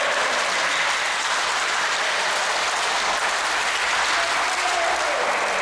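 A group of people clapping, as steady applause.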